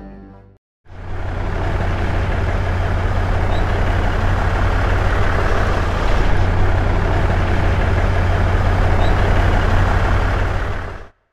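Heavy truck engine running steadily with a deep rumble. It starts about a second in and cuts off abruptly near the end.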